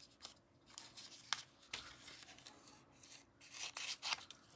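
Soft rustling and crinkling of shimmer paper and a double-sided adhesive sheet being handled, with a few short crisp ticks.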